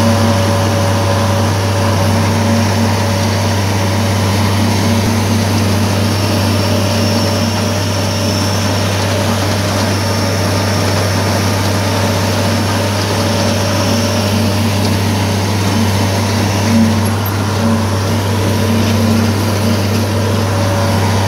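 International Farmall 856 tractor's six-cylinder engine running steadily under load, heard from the operator's seat, as it pulls a New Holland 499 haybine mower-conditioner cutting alfalfa. The haybine's running machinery adds to the steady sound.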